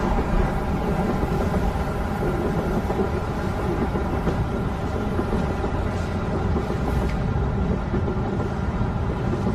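Subway train running steadily, heard from inside the carriage as a constant low rumble.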